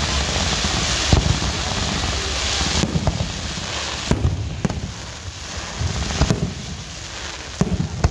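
Fireworks going off: a steady hissing crackle for about the first three seconds, then a string of separate sharp bangs from shells bursting overhead.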